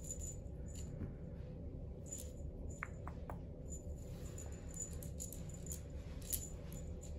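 Cat toys jingling and rattling in short, light bursts as kittens play with them, with a few brief high squeaks about three seconds in.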